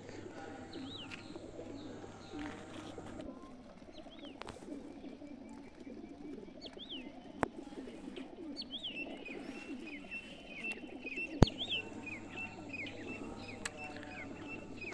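Many racing pigeons cooing together in crates, a dense murmuring coo. Higher bird chirps come over the top, busier in the second half, and there are two sharp clicks about four seconds apart.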